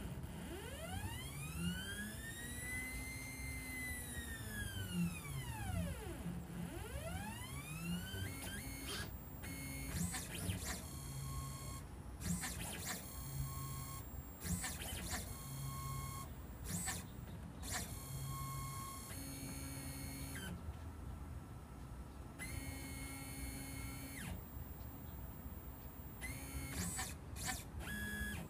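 Stepper motors of a home-built Solsylva-design CNC router driving its axes through a G-code program, with no router spindle running. The motor whine rises and falls in pitch in smooth arcs for the first eight seconds or so as the axes speed up and slow down. After that come short steady tones that start and stop with each move.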